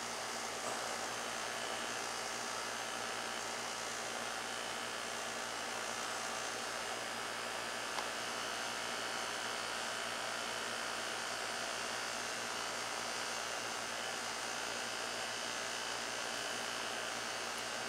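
Steady, even hiss of background noise with a faint hum, broken only by a couple of tiny clicks.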